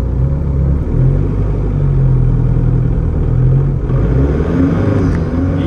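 Turbo-diesel engine of a home-built high-efficiency car running steadily, warming up before a 0-60 mph run.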